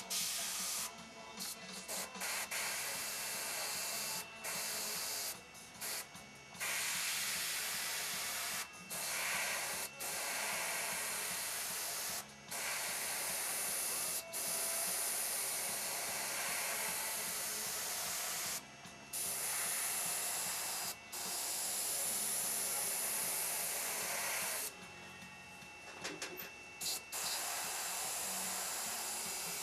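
Airbrush hissing as it sprays paint, in stop-start bursts: short ones at first, then runs of several seconds broken by brief pauses.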